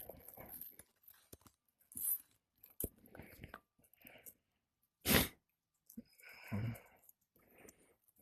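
Scattered scuffs and knocks from work on an asphalt shingle roof, with one sharp hit about five seconds in.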